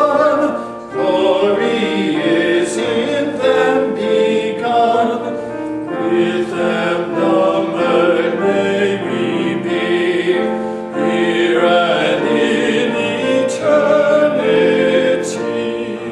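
Two men singing a hymn together in duet.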